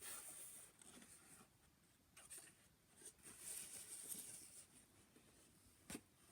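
Near silence, with faint rustling and a few light taps.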